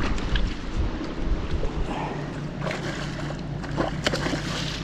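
Wind buffeting the microphone out on the water, a steady low rumble, with a few short sharp sounds, two of them close together near the end.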